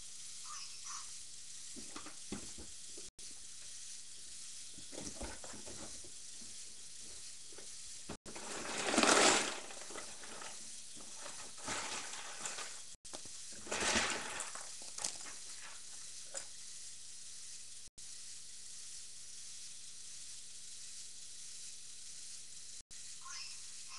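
Steady hiss of a webcam microphone, with two louder rustling surges of about a second each, around a third and halfway in, and a few small clicks of handling.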